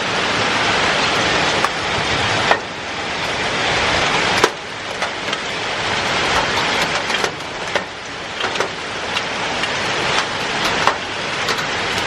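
Heavy downpour in a hailstorm: a dense, steady hiss of rain and hail, with scattered sharp knocks of hailstones striking close by, the loudest about two and a half and four and a half seconds in.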